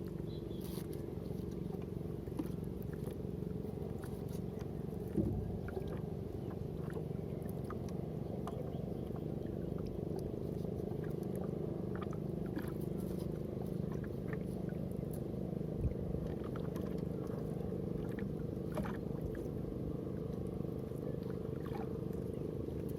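A small boat's engine running steadily at a low, even pitch, with a few faint clicks and knocks over it.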